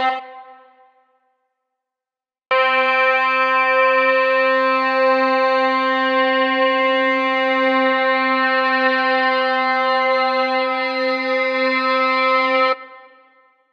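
A single held musical note, steady in pitch and rich in overtones, like a synthesizer or organ tone. It starts abruptly a couple of seconds in, sounds for about ten seconds, then cuts off with a brief fading tail.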